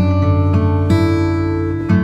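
Background music: acoustic guitar playing, with new chords struck about once a second.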